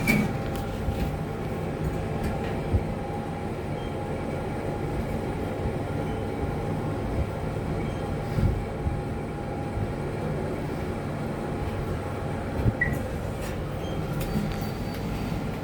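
Passenger lift car in travel, a 2019 Fujitec, giving a steady rumble and hum throughout with a few brief knocks.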